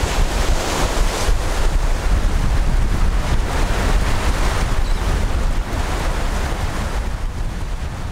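Wind buffeting the microphone with a heavy, uneven low rumble, over the steady wash of ocean waves.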